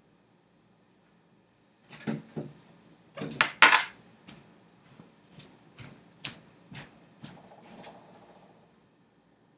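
A run of sharp clicks and clattering knocks of hard objects, loudest in a quick cluster about three and a half seconds in, then scattered lighter clicks that die away near the end.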